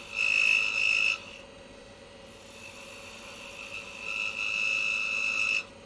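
A 1/2 inch skew chisel cutting a small maple blank spinning on a wood lathe makes a high whine in two passes. The first pass is loud and lasts about a second. The second starts about two and a half seconds in, swells, and cuts off abruptly near the end. A faint steady hum from the lathe runs under both.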